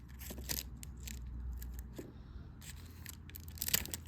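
Packaging from an opened trading-card box being gathered up by hand: irregular crinkling, rustling and light scraping, with a louder crackle near the end.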